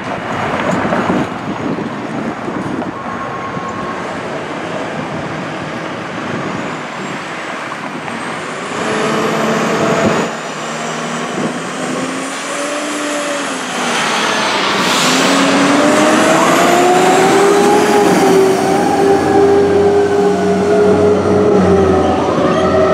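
Fire apparatus (a Seagrave pumper and a Seagrave ladder truck) pulling out and accelerating, with heavy engine noise. Sirens start about nine seconds in, rising and falling, then wind up to a louder, sustained wail in the second half.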